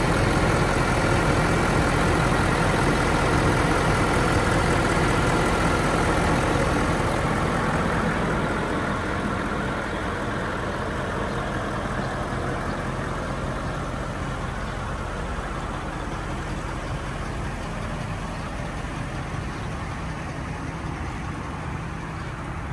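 Ford F-350 Super Duty V8 engine idling steadily, growing fainter from about eight seconds in.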